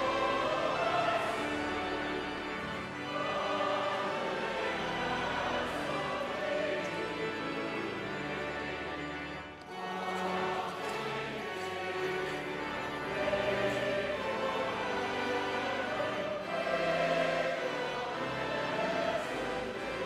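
Church choir singing a hymn in long held notes, with a short break about halfway through.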